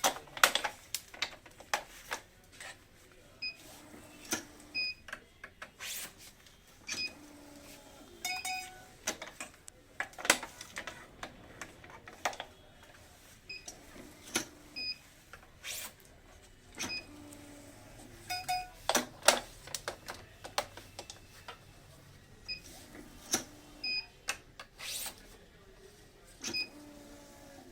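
Badminton racket being strung on a stringing machine: irregular sharp clicks and snaps of the clamps and string, with pairs of short high tones every few seconds.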